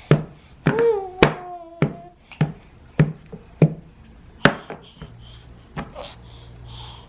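A run of sharp taps or knocks, about one every half second, slowing and fading after about four and a half seconds. A baby lets out a short vocal sound that falls in pitch about a second in.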